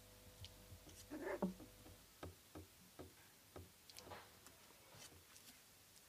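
Soft, scattered scuffling and light taps of 24-day-old kooikerhondje puppies moving and playing on fleece bedding, with a brief louder scuffle about a second and a half in.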